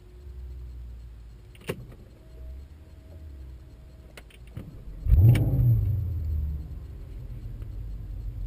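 Porsche Panamera GTS's 4.8-litre V8 being started about five seconds in, with a short rev flare at start-up that settles into a steady idle; the sport exhaust is switched off. A click or two are heard before it fires.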